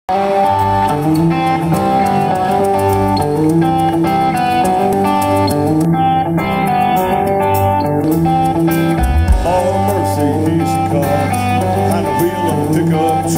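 Live country band playing an instrumental intro on guitars, bass and drums, loud through the stage sound system and heard from the crowd.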